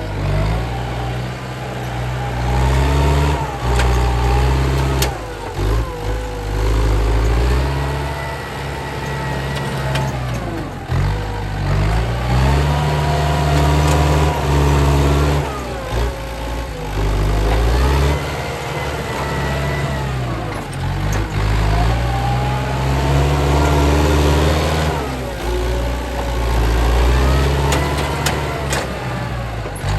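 Heavy diesel engine of earthmoving machinery revving up and dropping back again and again, about every four to five seconds, as it works under load.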